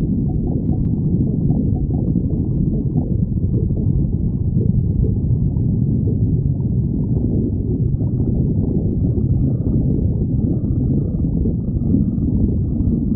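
A hungry person's stomach growling: a continuous low rumble at an even level, without a break.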